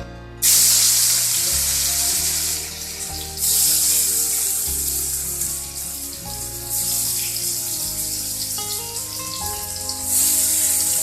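Paneer cubes dropped into hot mustard oil in a kadai, sizzling loudly as they fry; the sizzle starts suddenly about half a second in and swells up again a few times. Soft background music plays underneath.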